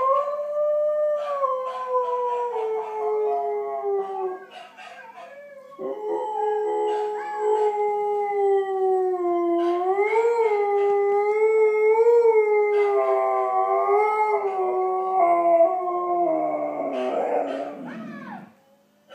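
A husky howling: one long howl falling slowly in pitch, then after a short pause a second long howl that wavers up and down and turns rougher before it stops near the end.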